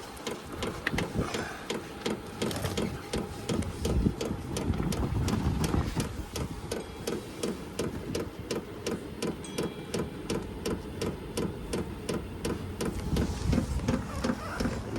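Diesel heater's fuel dosing pump ticking steadily, a few clicks a second, over the continuous hum of its blower fan while the heater starts up and warms.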